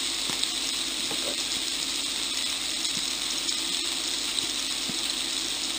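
Kebabs, tomatoes and red onion sizzling in oil in a frying pan: a steady crackle with scattered small pops.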